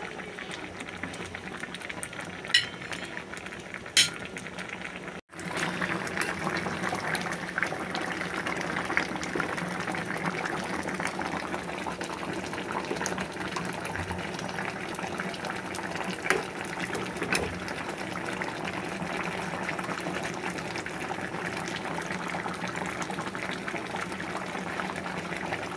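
Ginataang tambakol, tuna in coconut milk, bubbling at a simmer in a metal pan, with a few light clinks of a metal spoon against the pan. The sound cuts out briefly about five seconds in and comes back louder.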